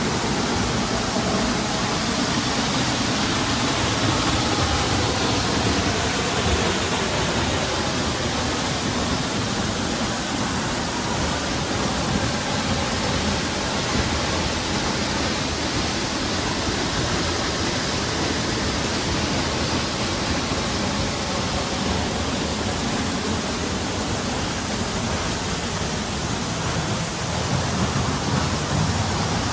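Steady rush of falling water, an even hiss without change.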